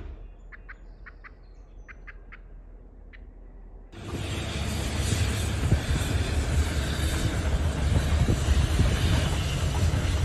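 Quiet with a few short bird chirps, then about four seconds in a loud, rushing rumble sets in abruptly and runs on.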